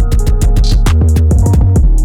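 Hip-hop beat of drum-machine kicks, snappy hits and bass under a sustained melodic part, played through the Zebra Clipper plugin with its Mojo control at 100%, which adds analog grit. A quick run of drum hits comes in the middle.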